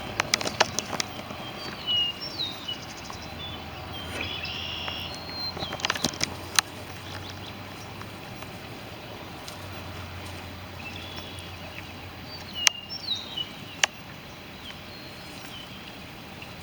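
Outdoor ambience: short bird chirps now and then, several sharp clicks, and a faint low engine hum passing around the middle.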